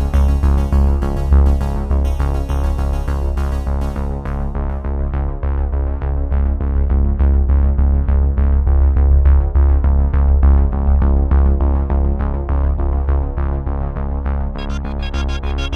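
Background electronic music on synthesizer with a heavy steady bass and a quick beat; the high end drops away about four seconds in and returns near the end.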